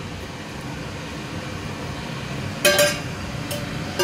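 A steel bowl clinks against a steel cooking pot as soaked rice is tipped into hot water, over a steady low rush. The loudest clink, with a short metallic ring, comes about two and a half seconds in, and a lighter one follows about a second later.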